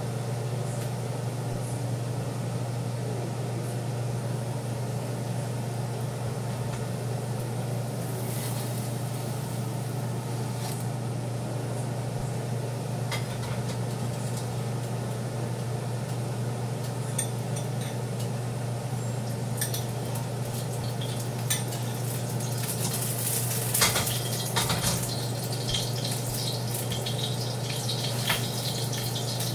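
Steady low hum in a home kitchen, with scattered light clinks of dishes and utensils, mostly in the last ten seconds.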